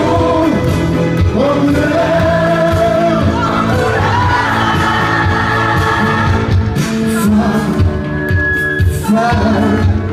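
Male singer singing a French pop song live into a handheld microphone, over loud amplified accompaniment.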